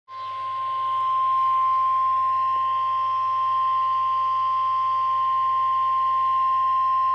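NOAA Weather Radio's 1050 Hz warning alarm tone: one loud, steady, unbroken beep over faint hiss and a low hum. It is the alert tone that comes before a broadcast warning, here a severe thunderstorm warning.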